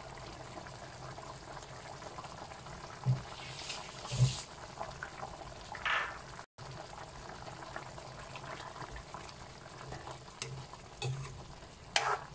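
Chicken and tofu in soy-sauce gravy bubbling at a low simmer in a wok, with a few short soft knocks. A spoon goes into the pan near the end.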